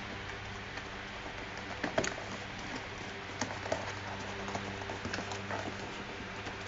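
Light scraping and a few soft taps as a cardboard earbud box is handled and its inner tray slid out on a table, over a steady low hum.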